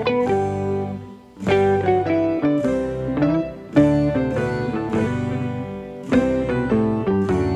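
Instrumental background music: a plucked-string melody of short notes over low bass notes, with a brief pause about a second in.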